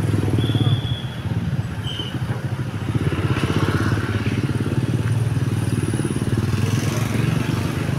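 A road vehicle's engine running with a steady low rumble. Two short high tones sound in the first two seconds.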